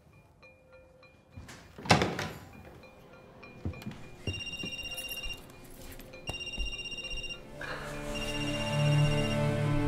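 A single loud thump about two seconds in. Then a telephone rings in short electronic rings about two seconds apart, three times. Low music comes in under the rings near the end and swells.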